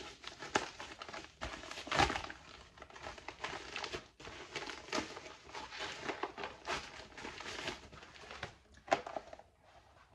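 Plastic bubble mailer crinkling and rustling as it is handled and opened, in irregular crackles, loudest about two seconds in.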